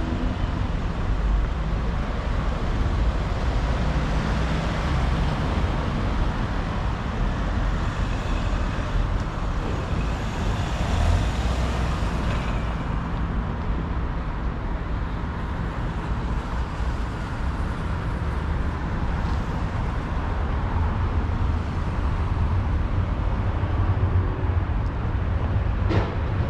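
City road traffic at a junction: cars driving past with steady engine and tyre noise. One vehicle passes close and louder about ten to thirteen seconds in, and there is a short click near the end.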